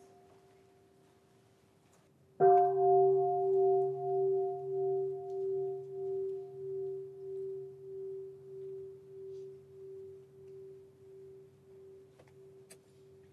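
A Buddhist bowl bell struck once about two seconds in, then ringing out in one long, slowly fading tone that wavers in a steady pulse; the tail of an earlier strike is dying away at the start. A faint click near the end.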